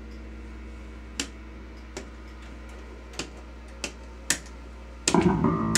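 A few sharp, irregularly spaced clicks over a steady low hum, then a louder burst of pitched sound lasting about a second near the end.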